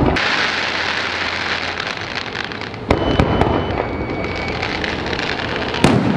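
Fireworks going off close by: a steady crackle of bursting shells, with two sharp, louder bangs, one about three seconds in and one near the end.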